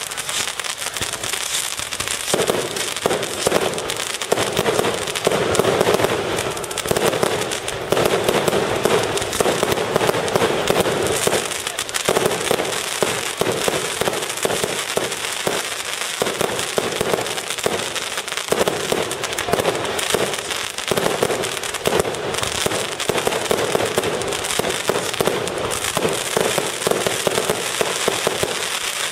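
Aerial fireworks going off in a dense, unbroken barrage of bangs and crackles, many bursts overlapping.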